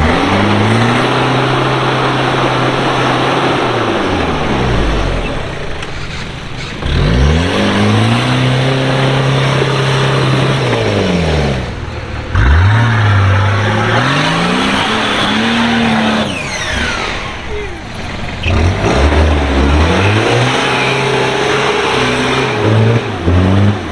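A 4x4's engine revving hard off-road, about four times: each time it climbs quickly, holds at high revs for a few seconds, then drops away. Throughout there is a loud, even rushing noise.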